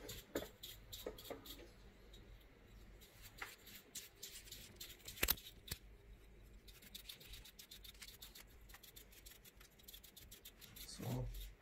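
A dry bristle paintbrush sweeping dust off the plastic cooling fan of an MSI GTX 1050 Ti graphics card: soft, quick scratching and ticking as the bristles flick over the fan blades, with one sharper tick about five seconds in.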